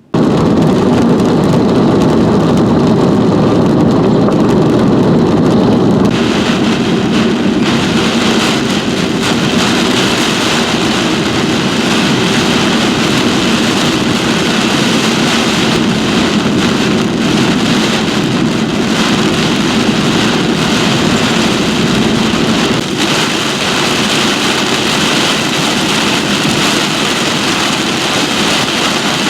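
Heavy rain beating on a vehicle, over steady road and engine noise. The high hiss of the rain gets louder about six seconds in.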